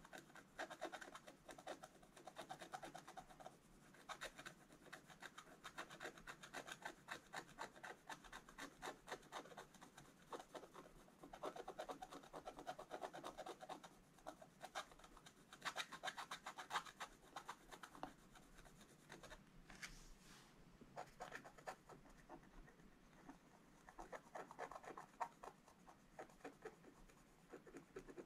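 Wooden scratch stylus scraping the black coating off a scratch-art sheet, quietly, in runs of quick short strokes broken by brief pauses.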